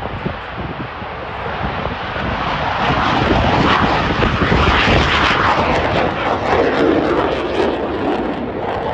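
Mitsubishi F-2B fighter's F110 turbofan at full power with afterburner, taking off and climbing steeply: a loud jet roar that swells about two and a half seconds in, with a crackle running through it.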